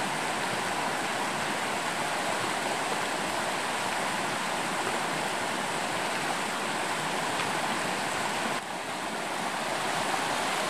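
Steady rush of a rocky mountain stream with white-water rapids, dipping briefly in level near the end.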